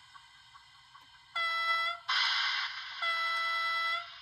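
Model BB 9288 electric locomotive's DCC sound decoder sounding its horn twice, a short blast and then a longer one about a second long, with a brief hiss between them.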